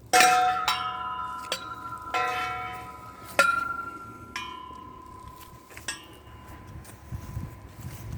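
Large tubular wind chime ringing, its tubes struck about seven times at uneven intervals, each tone fading slowly and overlapping the next. The loudest strikes come at the start and about three and a half seconds in.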